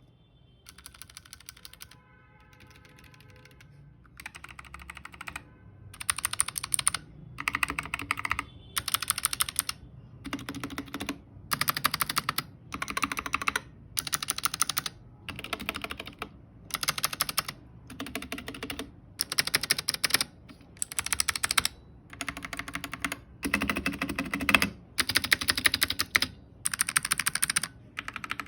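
Keyboard switches being typed on in short rapid bursts of key clicks, about one burst every second and a half. The bursts start faint and get much louder about four seconds in.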